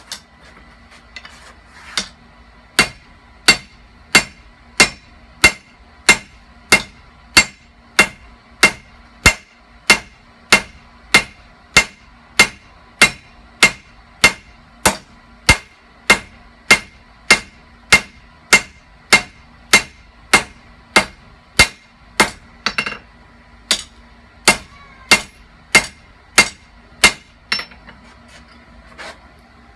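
Blacksmith's hammer forging a leaf-spring steel knife blank on an anvil, in a long run of steady, ringing blows about three every two seconds, with a brief break near the end.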